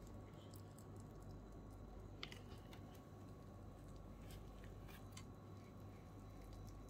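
Near silence with a few faint, scattered small clicks and scrapes, the clearest about two seconds in: a tool working at a glued lithium pouch battery to pry it loose, over a low steady hum.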